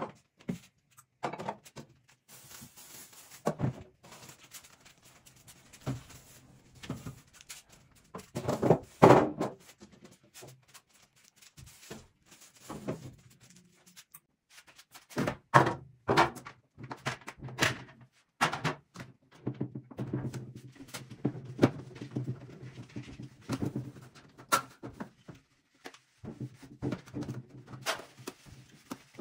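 Scattered knocks and thunks from an empty refrigerator's door and plastic fittings being handled during cleaning, loudest about nine seconds in, with cloth wiping on the inside of the door near the end.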